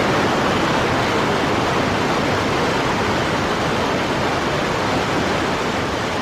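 Steady, even rushing noise like a waterfall, easing off slightly toward the end.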